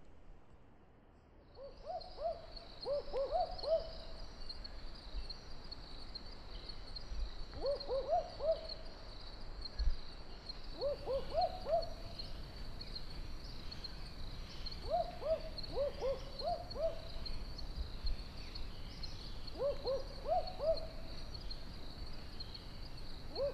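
An owl hooting at night in groups of several short hoots, each group repeated about every three to four seconds, over a steady high-pitched chirring.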